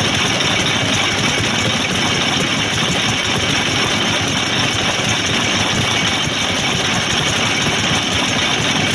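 Vintage Japanese stationary oil engines running steadily at idle.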